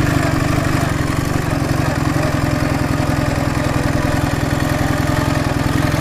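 Ural motorcycle's air-cooled boxer-twin engine running steadily while riding along a dirt track.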